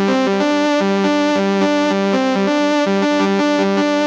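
Electronic keyboard set to oriental quarter-tone tuning, playing a fast repeating melodic phrase of short notes, several a second, in a bright synth voice, with no rhythm accompaniment.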